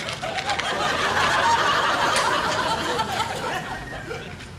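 Studio audience laughing at a comedy sketch, swelling about a second in and dying away near the end.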